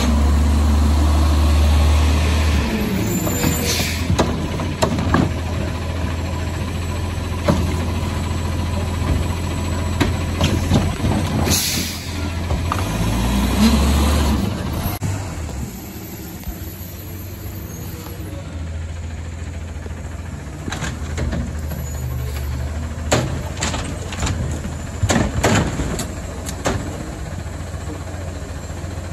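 Front-loader garbage truck with a carry-can cart attachment: its diesel engine revs up briefly at the start and again after about twelve seconds, with an air brake hiss just before the second rev. Through the second half, sharp clanks come from the cart gear and the carts.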